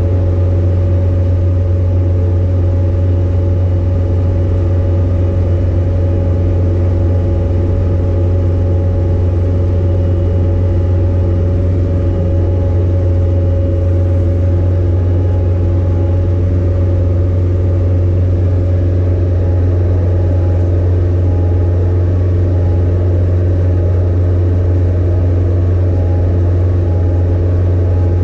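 Skid steer engine idling steadily while it warms up after being started, holding an even pitch and level throughout with no revving.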